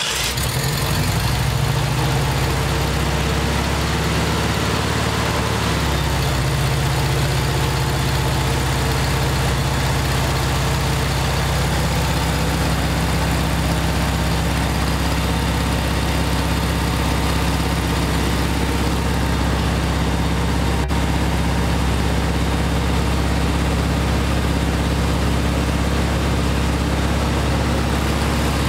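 Air-cooled 36 hp VW flat-four engine running at a raised fast idle, set so its alternator can keep the battery charging under a space-heater load. Its speed wavers a little in the first few seconds, then holds steady. There is a single sharp click about two-thirds of the way through.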